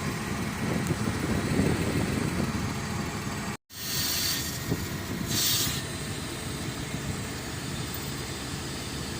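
Heavy diesel engine of a Foden 6x6 recovery truck running steadily. The sound cuts out for a moment about a third of the way in, and two brief hisses follow soon after.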